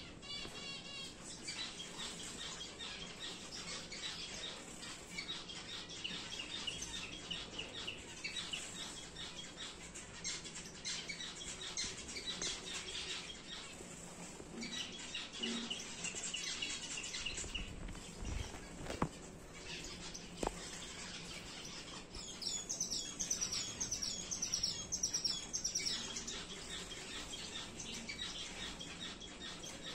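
Star finches chirping and calling, with short high notes throughout and a run of quick repeated notes a little after the middle. Two sharp clicks stand out shortly before that run.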